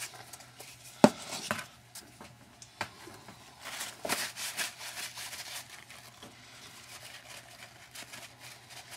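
Small handling sounds at a workbench: a sharp plastic click about a second in as the cap goes back on a spray bottle, a few light ticks and rustles, then a paper shop towel rubbing softly as a freshly coated bolt is wiped.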